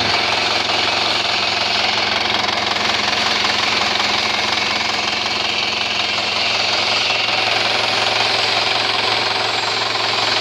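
Vertical milling machine running under cut, its end mill milling a long steel lathe bed: a loud, steady rattling machining noise over a steady low hum, with no let-up.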